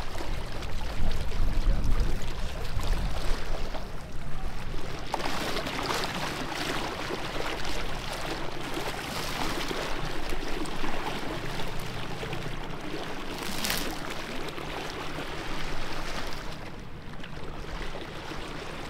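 Water rushing and trickling along the hull of a small tender under way, driven by a quiet electric outboard.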